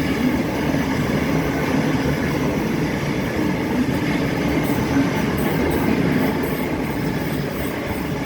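Train running through the station: a steady low running noise with a hum, and faint light clicking from about halfway through.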